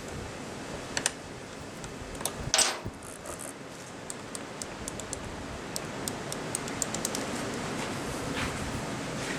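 Small irregular clicks and taps of a hand tool on the plastic housing of a Makita DMR110 radio as its front hex bolts are tightened, with one louder clatter a few seconds in, over a steady background hiss.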